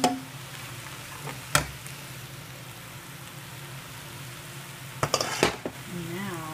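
Fried rice (rice, vegetables and egg) sizzling in a frying pan, with a spatula knocking against the pan once about a second and a half in and a few quick knocks and scrapes near the end.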